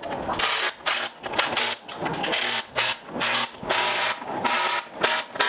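Repeated short scraping strokes of a hand tool on the steel of a tank's drive sprocket, a few strokes a second in an uneven rhythm.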